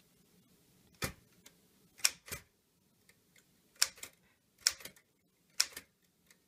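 Smith Corona Sterling manual typewriter being typed on slowly, one key at a time: about nine sharp clacks at an uneven pace, several coming in quick pairs.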